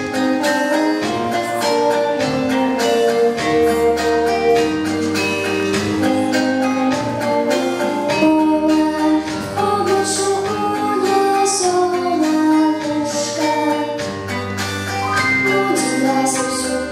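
A young girl singing a song into a microphone over instrumental accompaniment, amplified through a PA.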